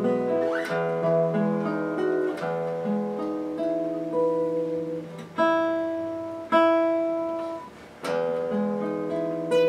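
1929 Gibson L5 carved-top archtop acoustic guitar played in chords, the chords changing quickly at first. About halfway through, two chords are struck a second apart and left to ring and fade, then the chord playing picks up again near the end.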